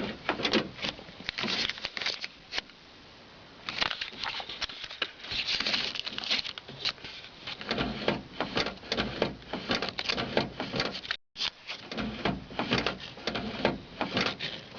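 Irregular clicks, taps and rustles of close handling at a pickup's door panel, with a brief cut-out about eleven seconds in.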